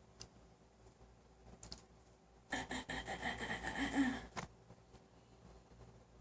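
A single raspy throat-clearing, lasting under two seconds, with a brief low note near its end.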